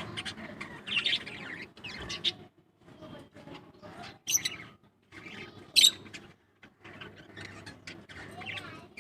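Small pet parrots chirping and squeaking in quick, scratchy bursts, with two loud, shrill calls about four and six seconds in.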